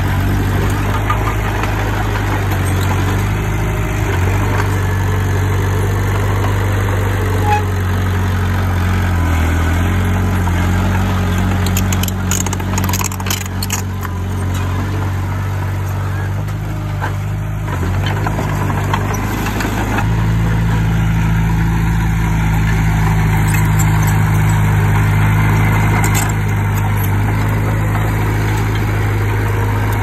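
Diesel engine of heavy earthmoving machinery running steadily. Its note shifts about ten seconds in and steps up louder about twenty seconds in. A few sharp metallic clanks come in the middle.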